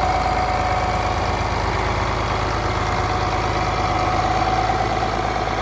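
John Deere 4010's six-cylinder diesel engine running steadily at low revs, near idle.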